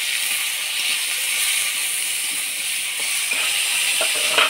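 Okra pieces sizzling steadily as they fry in oil in a pan, with a few light knocks of stirring about three seconds in and near the end.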